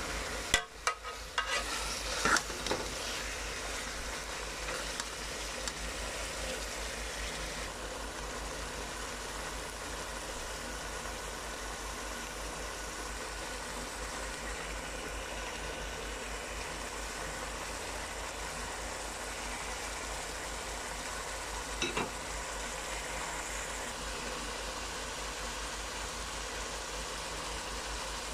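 Chicken pieces frying in a pot of masala with a steady sizzle, and a steady low hum underneath. A few sharp knocks and clatters come in the first three seconds, and one more knock about 22 seconds in.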